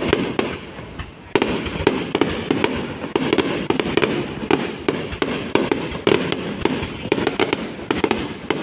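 Fireworks display: a dense, continuous crackle of many rapid bangs and pops, easing briefly about a second in and then resuming.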